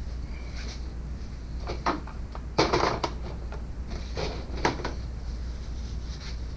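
A few knocks and a short clatter, parts or tools being handled during engine reassembly, the loudest about two and a half seconds in, over a steady low hum.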